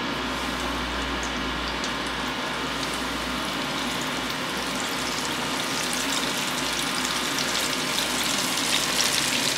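Flour-coated chicken wings deep-frying in hot oil in a steel pot: a steady bubbling sizzle that grows a little louder and more crackly as more wings are dropped in.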